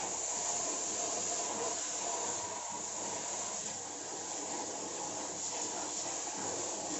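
Steady hiss of water spraying from a hose onto washing machine parts while they are rinsed clean.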